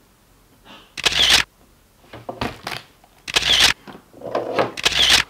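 Camera shutter clicks, three loud ones about two seconds apart with softer sounds between.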